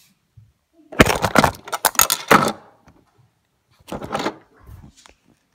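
Handling noise: a clatter of sharp knocks and scraping rubs as the recording device is picked up and moved, then a second shorter burst of knocking about four seconds in.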